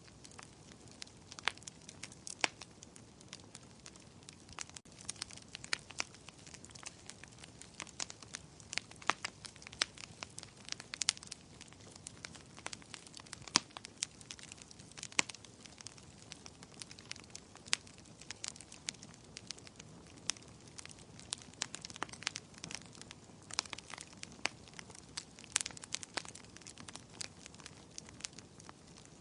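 Wood campfire crackling: irregular sharp pops and snaps, several a second, over a soft steady hiss of burning.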